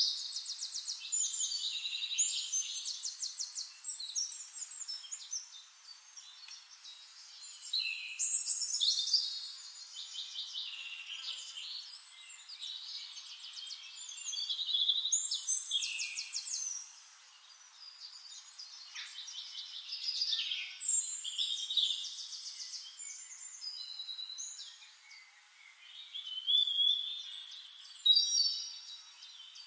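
A songbird singing long, varied phrases of rapid high trills and short whistles, a new phrase starting every several seconds.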